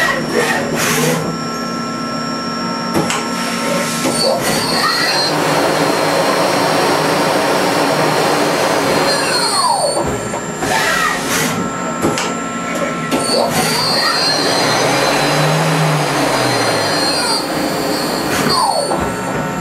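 Mori Seiki NL2500SY CNC lathe running: the spindle winds up with a rising whine and back down twice as the chuck spins up and stops, over a steady machine hum. Sharp clicks and clunks come near the start, about halfway through and near the end, between the spindle runs.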